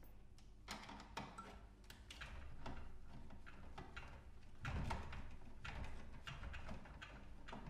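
Faint, irregular clicks and taps of a hand screwdriver turning out screws and knocking against a hard plastic TV casing, with a louder clatter about five seconds in.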